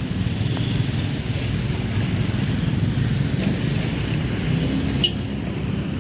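Street traffic: motorcycle and car engines running past, with wind rumbling on the microphone. A short sharp click about five seconds in.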